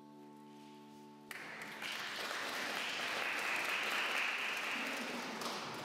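A sustained instrument note holds for about the first second and breaks off, then an audience applauds, the clapping swelling and tailing off near the end.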